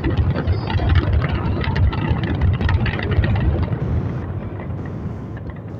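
Fireworks display: dense crackling of many glittering shells going off together over a steady low rumble of bursts, dying down over the last couple of seconds.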